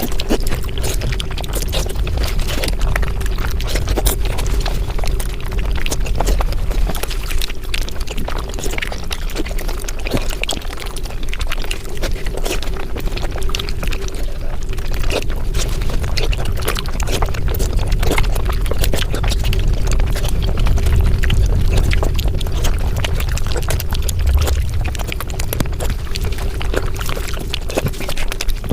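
Mukbang eating sounds sped up five times, the chewing turned into a dense, rapid crackle of clicks over a low rumble and a steady hum.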